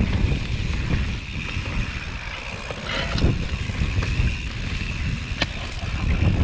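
Mountain bike descending a dirt singletrack: wind buffeting the action-camera microphone and tyres rumbling over the dirt, with a steady high-pitched buzz throughout. A few sharp knocks come from the bike over bumps, one about three seconds in and one near the end.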